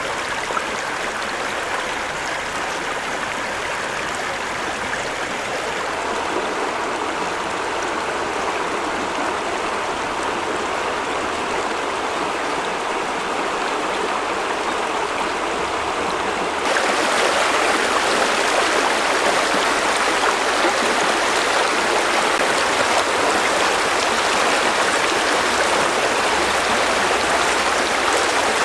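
Stream water flowing over rocks, a steady rush that steps up louder about two-thirds of the way through.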